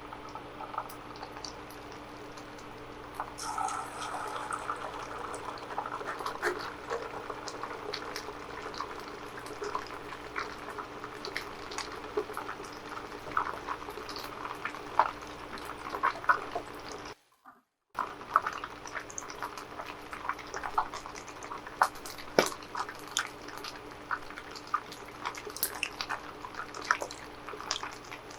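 Chicken nuggets frying in hot oil: a steady sizzle with many irregular crackles and pops, cutting out briefly for under a second about two-thirds of the way through.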